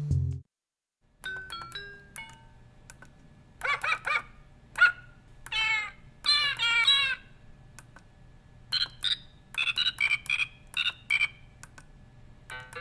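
Elekit AW-860 electronic piano kit playing short, bright electronic beep notes, a few of them sliding in pitch, then a quick run of notes near the end. Guitar music cuts off in the first half second.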